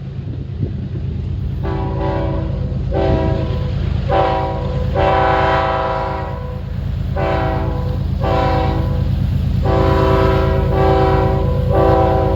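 Ferromex locomotive's multi-tone air horn sounded in a rapid series of about nine blasts, mostly short with one longer blast in the middle, starting about two seconds in. Underneath, a low, steady locomotive rumble grows louder over the first seconds.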